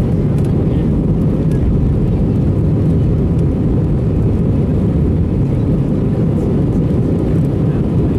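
Airbus A321 jet airliner during take-off: a loud, steady low rumble of engines and airflow, with a faint steady whine above it.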